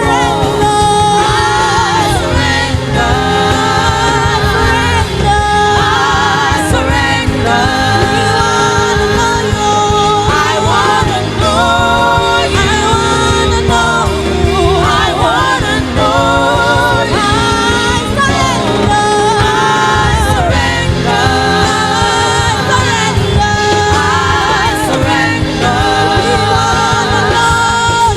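Gospel worship song: singing voices with vibrato over steady instrumental accompaniment.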